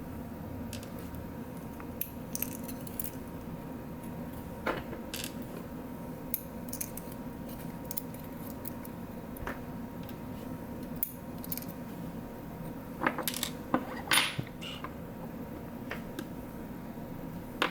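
Small metal lock parts from a disassembled Medeco biaxial lock clicking and clinking against each other and a hard surface as they are handled: scattered light taps, with a short cluster of louder clinks near the end, over a steady faint hum.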